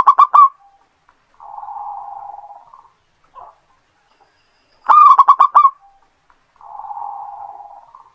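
Zebra dove (perkutut) singing: a quick run of four or five loud coos followed by a softer, rolling purr, the whole phrase given twice about five seconds apart.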